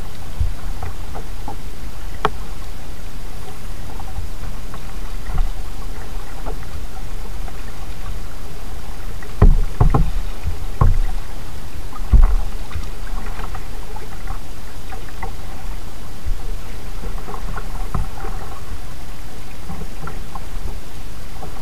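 Kayak being paddled: soft paddle splashes and drips, with a few louder knocks, likely the paddle against the plastic hull, about halfway through, over a steady low rumble.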